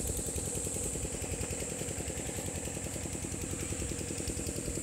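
An engine running steadily at an even, idling pace with a rapid regular beat, and a steady high-pitched whine above it.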